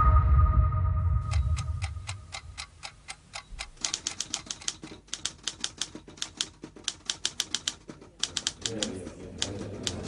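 Electronic music fades out over the first second or two. Then come rapid runs of typewriter keystrokes, sharp clacks several per second in irregular bursts with short pauses between them.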